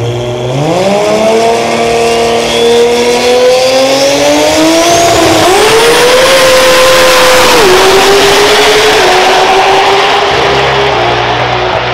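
Drag racing car launching hard off the line and accelerating down the strip at full throttle. The engine's pitch climbs steeply at the launch and keeps rising, with three upshifts heard as dips in pitch: about five seconds in, near eight seconds and near nine seconds.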